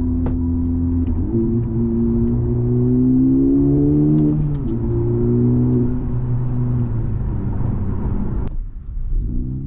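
Honda Civic Type R's turbocharged four-cylinder engine pulling away under acceleration: its note rises for a few seconds, drops sharply at a gear change about four and a half seconds in, holds, then breaks off abruptly near the end and starts rising again.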